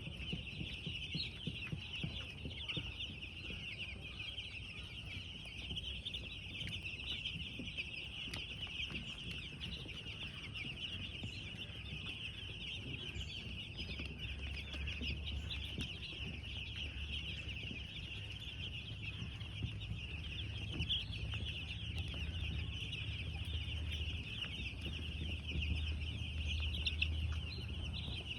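A flock of broiler chicks peeping continuously, many high chirps overlapping. A low hum runs underneath and grows louder about halfway through.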